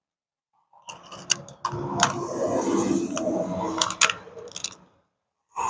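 Small metal hardware rattling, clinking and scraping as it is handled, with several sharp clicks.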